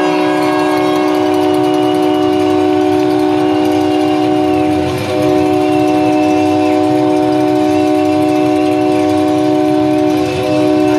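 A loud held chord of several steady notes played over an arena sound system, with brief dips about five and ten seconds in.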